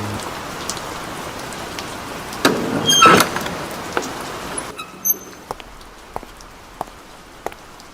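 Steady rain hiss, broken by a loud scraping rattle with a few short squeaks about two and a half to three seconds in. About five seconds in the rain hiss drops away sharply, leaving slow, separate drips.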